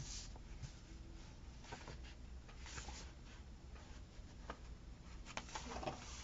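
Faint rustling of paper and a few light taps and ticks as stickers are handled and pressed onto a planner page.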